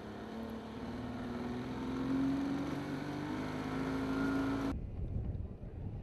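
A motorboat's engine running steadily, its hum rising slightly in pitch and then holding, with water and wind noise around it. It cuts off abruptly near the end and gives way to wind buffeting the microphone.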